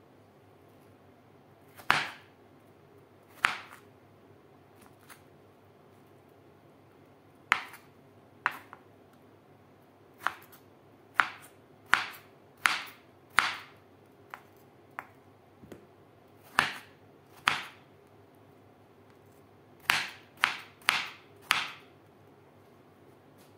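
Knife cutting watermelon rind into cubes on a wooden cutting board: sharp single knocks of the blade hitting the board, irregular and every second or two, with quick runs of several strokes in a row.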